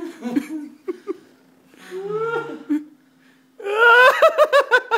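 A man's helpless fit of laughter he cannot stop: breathy giggles and gasps in broken bursts, then about three and a half seconds in a loud, high-pitched run of rapid ha-ha-ha pulses.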